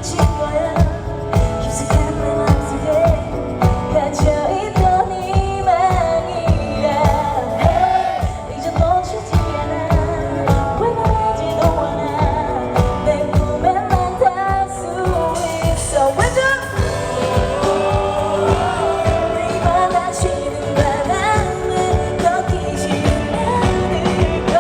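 A woman singing a Korean pop ballad live over a full band with a steady drum beat, recorded from the audience through a camera microphone that distorts under the loud PA.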